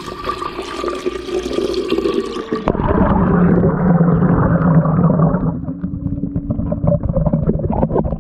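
Water churning and bubbling in an aerated bait-shop minnow tank, heard with the camera dipped into the tank. About three seconds in the sound turns dull and muffled as the microphone goes under, with a low steady hum beneath the water noise.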